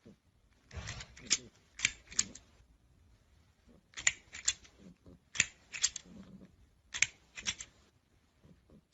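Sharp clicks or taps in short groups of two or three, the groups coming about every second and a half.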